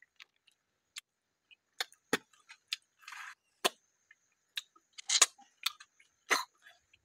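Cooked clam shells clicking and clinking as they are picked over and pried apart by hand, a string of sharp irregular clicks, with short sucking and eating noises as the meat is taken from the shells.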